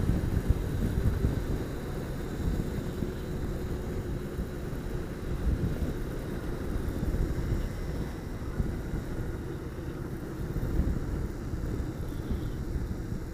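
Motorcycle riding along at steady speed: the engine's steady running mixed with a low rumble of wind and road noise on the bike-mounted microphone.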